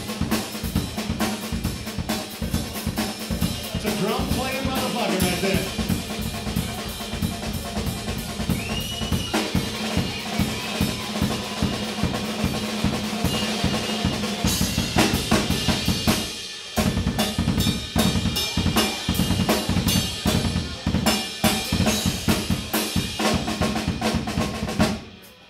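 A live band playing an instrumental funk groove with the drum kit out front: quick, steady snare and kick hits over a held low note. The band drops out for a moment about two-thirds of the way through, then stops just before the end.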